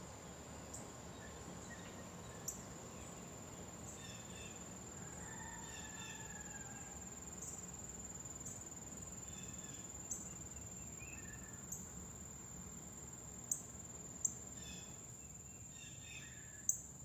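Insects keep up a steady, high-pitched drone with no break. Several short, sharp bird chirps and a few brief bird calls sound over it at irregular intervals.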